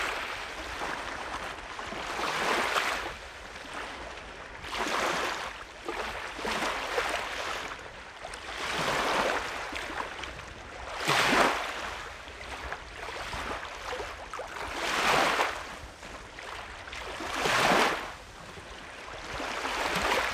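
Small Lake Superior waves washing up onto a sandy beach, a hissing wash that swells and falls back every two to three seconds.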